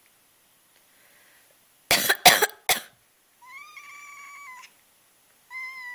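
A person coughs three times in quick succession, the loudest sound, and then a cat meows twice in protest at the cough: one long, level meow, then a second that drops in pitch at its end.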